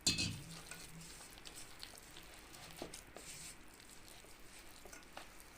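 Thick bajji batter of maida and rice flour being stirred and mixed in a bowl: faint, irregular wet squishing with scattered small clicks, after a soft knock at the start.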